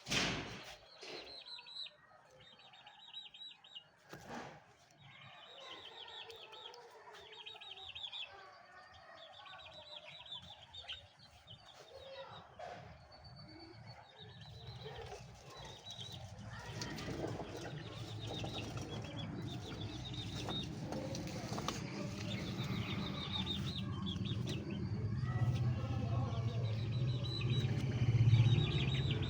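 Caged birds fluttering their wings and chirping in short repeated high trills, after a sharp knock at the very start. A low rumble grows steadily louder through the second half.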